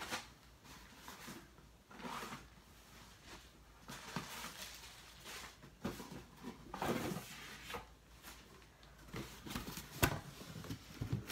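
Gifts and packaging being handled in a cardboard box: irregular bursts of crinkling and rustling, with a sharp knock about ten seconds in.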